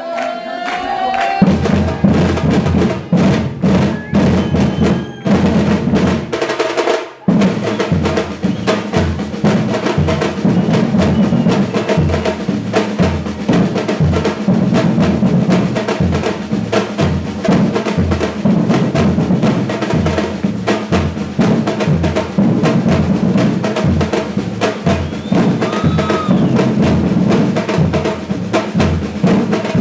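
Brazilian batucada percussion ensemble playing a samba groove on bass drums, snare drums and wood-block-type percussion. The drums come in about a second and a half in, break off for a moment around seven seconds, then restart and hold a steady driving rhythm.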